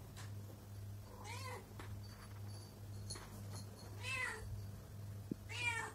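Pregnant calico cat meowing three times, each call rising then falling in pitch, over a steady low hum.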